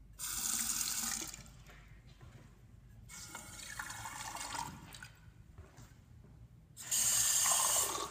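Bathroom sink faucet running onto a porcelain basin and its drain grate in three short spells, each turning on and then shutting off.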